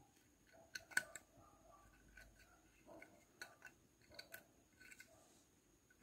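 Faint, scattered clicks of a metal hook against the nail pegs of a wooden knitting frame as yarn loops are lifted over them, the loudest about a second in.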